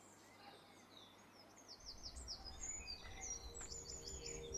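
Faint birdsong in woodland: small birds chirping in quick repeated high notes and short trills. About two seconds in, a low rumbling swell comes in and slowly grows louder.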